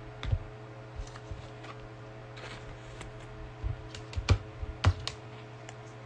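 Scattered light clicks and knocks, about a dozen at irregular intervals, the loudest coming about four to five seconds in, over a steady low electrical hum.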